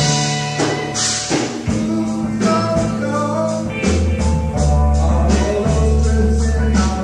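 Live rock band playing, with a steady bass line and regular cymbal strikes.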